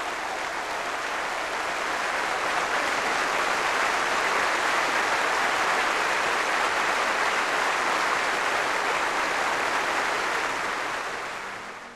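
Large crowd applauding in a standing ovation: a dense, steady clapping that swells slightly about two seconds in and fades away near the end.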